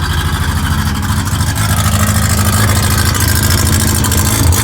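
Mazda RX-7 rotary engine running through an exhaust fitted with a test pipe in place of the catalytic converter, a loud, raw note that grows slightly louder about a second and a half in.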